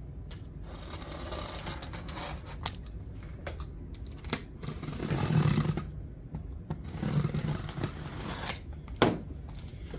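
Cardboard box packaging being opened and handled: irregular scraping, rustling and tearing with a few sharp clicks. A louder dull rubbing comes about five seconds in.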